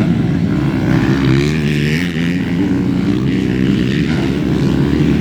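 Several motocross dirt bikes racing, their engines revving up and down with overlapping, shifting engine notes.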